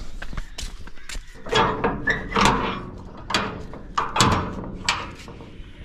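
Several loud bangs on a corrugated sheet-metal gate, each with a short metallic ring. The bangs come spaced out, about six over a few seconds.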